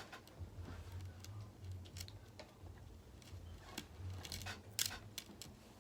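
Faint scattered clicks and light taps of small plastic toy pieces being handled, over a low hum.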